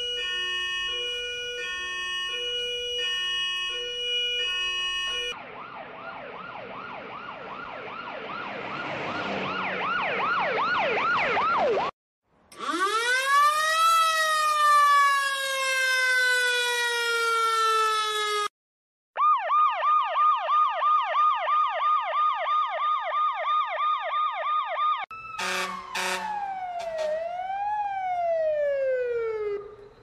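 A run of emergency-vehicle sirens cut one after another. First a two-tone siren alternating between two steady pitches, then a siren that rises and breaks into a fast yelp. About midway a fire-truck siren climbs and then slowly winds down, followed by a fast, even electronic yelp and, near the end, slower wails gliding up and down.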